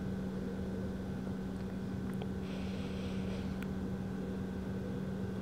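Steady low room hum with an even tone, like a fan or electrical hum. A brief soft hiss and a couple of faint clicks come near the middle.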